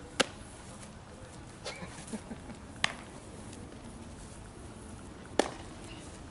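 Baseball smacking into leather gloves during a game of catch: three sharp pops a few seconds apart, with a few softer knocks between the first two.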